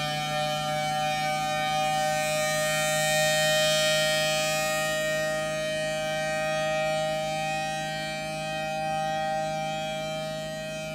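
Federal Signal Thunderbolt civil defense siren sounding a steady two-tone chord at a constant pitch, its level slowly easing.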